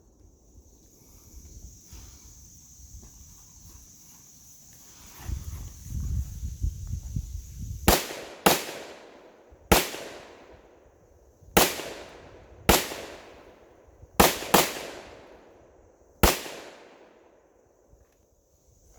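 Eight gunshots fired at uneven spacing, about a second or two apart, with a quick double shot about two-thirds of the way through. Each is a sharp crack that fades within a fraction of a second.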